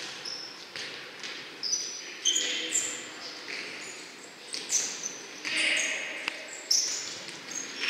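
A futsal game in play: players' shoes giving brief high squeaks on the court floor, with several sharp thuds of the ball being kicked and bounced.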